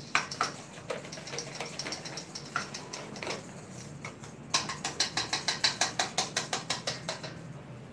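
Wire whisk clicking and scraping against a stainless steel mixing bowl while whisking cake batter. Scattered strokes at first, then a fast run of clicks at about five a second through the middle, stopping about a second before the end.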